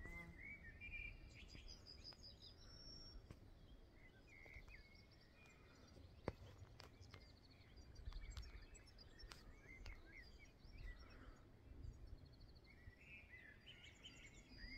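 Faint outdoor ambience: small birds chirping and trilling in short phrases, over a quiet low rumble, with a single sharp click about six seconds in.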